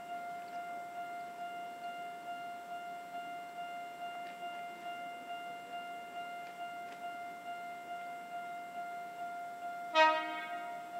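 Railway level-crossing alarm ringing: one clanging tone repeating steadily, roughly two and a half times a second. About ten seconds in, a short, loud horn blast sounds over it.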